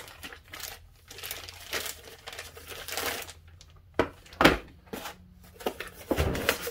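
Plastic-wrapped foam packing crinkling and rustling as it is handled, with two sharp knocks about four seconds in, then cardboard packaging being rustled and handled near the end.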